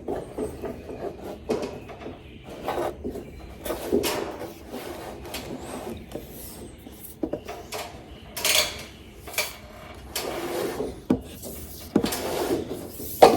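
Romex electrical cable being pulled through drilled holes in wooden purlins, with irregular rubbing and scraping of the cable against the wood and a few light knocks.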